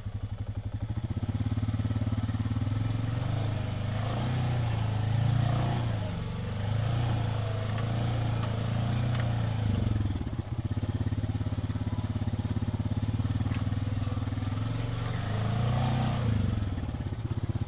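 Side-by-side UTV engine running at low speed over a rough dirt trail, its pitch rising and falling as the throttle is worked. A single sharp knock comes about ten seconds in.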